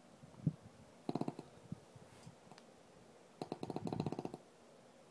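A sleeping pet snoring in two rattling snores, a short one about a second in and a longer one of about a second near three and a half seconds in, with a soft thump just before the first.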